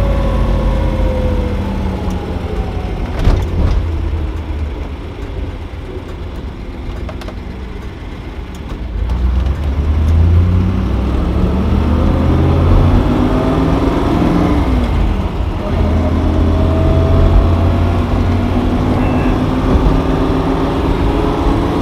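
1969 Ford Mustang Boss 429's big-block V8 with a mechanical cam, heard from inside the cabin. It slows with falling pitch, then accelerates hard from about nine seconds in. Its pitch drops sharply once at an upshift, then climbs again.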